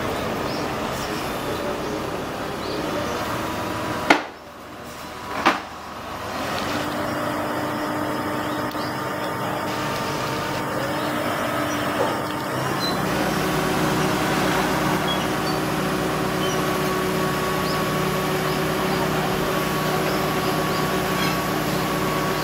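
Engine of a truck-mounted crane running steadily, with two sharp knocks about four and five and a half seconds in. The engine hum grows fuller from about halfway on.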